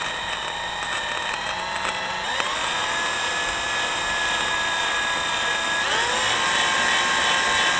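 Cordless drill in low gear turning a diamond-coated bit into a glazed ceramic tile: a steady motor whine that steps up in pitch about two and a half seconds in and again about six seconds in.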